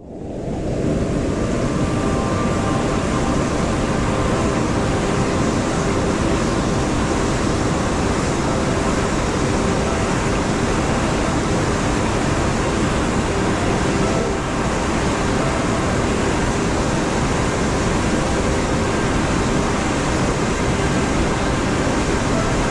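Steady rush of water pouring down a waterfall, fading in over about the first second and then holding at an even level.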